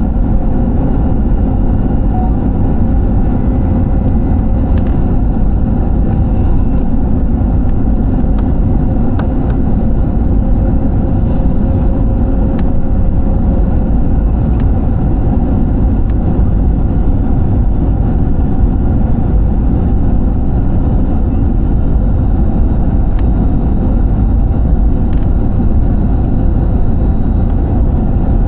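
Airliner cabin noise: a steady, unbroken rumble of engines and rushing air heard from inside the cabin, with a faint thin hum that fades out about halfway through.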